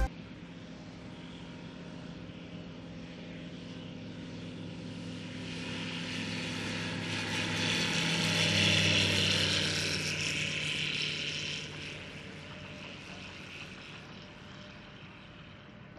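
Flight Design CTLSi light sport airplane taking off at full power: its Rotax 912 iS engine and propeller grow louder as it rolls past, loudest about halfway through, then fade as it climbs away.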